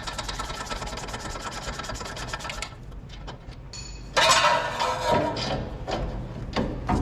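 Hand work on a pickup's front suspension: rapid, even clicking for the first few seconds, then about four seconds in a louder metallic scraping and rubbing as parts are worked against each other.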